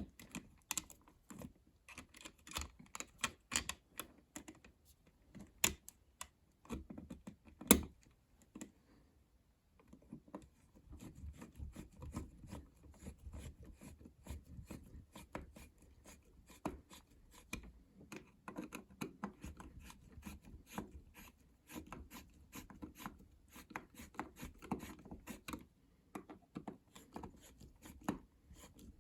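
Handling noise as a smart dimmer switch is worked into its electrical wall box: irregular clicks and knocks, one sharp knock about eight seconds in, then a long stretch of scraping and rubbing with more clicks.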